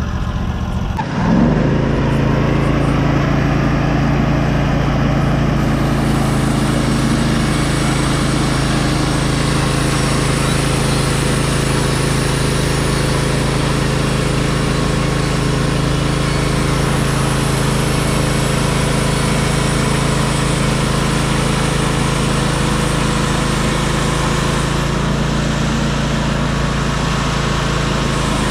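Portable sawmill's engine rising from idle to high speed about a second in, then running steadily under load. A hiss joins it about six seconds in and eases near the end, the blade cutting through the pine log.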